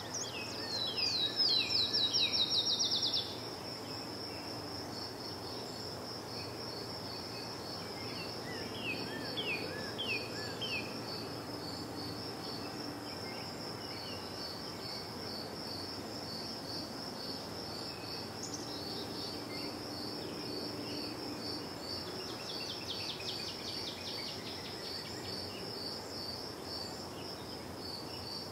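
Crickets chirping in a steady, high, pulsing chorus throughout, with songbirds singing over them: a loud run of quick falling notes right at the start, shorter falling phrases about a third of the way in, and later a fast trill.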